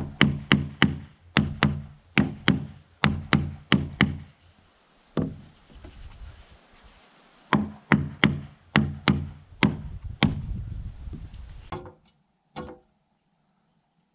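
Hammer blows on wood of a log wall, in two quick runs of about three strikes a second with a single blow between, each with a short low ring. They stop near the end.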